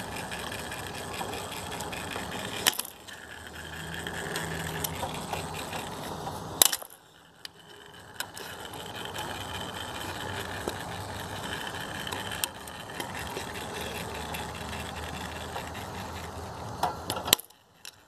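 A flathead screwdriver scraping and prying at the small metal tabs of a timer motor's cover, with a few sharp metallic clicks spread through.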